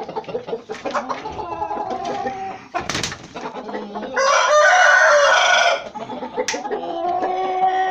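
Rooster crowing once, a long call of about a second and a half a little past the middle and the loudest sound here, among short clucking calls from chickens in the coop. A sharp knock about three seconds in.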